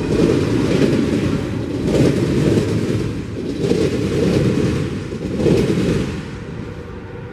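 Autorack freight cars rolling past on the rails: a steady low wheel rumble with recurring clacks over the rail joints, fading about six seconds in as the end of the train draws away.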